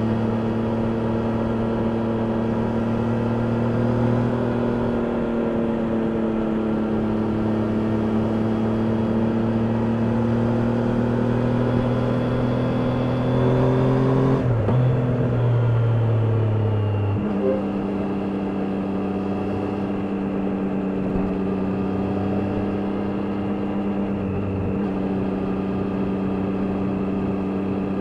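Triumph Daytona 660's inline three-cylinder engine under way on the road, its note drifting slowly in pitch. About halfway through the note breaks and drops, and a few seconds later steps down again, like gear changes, before settling into a steady cruise.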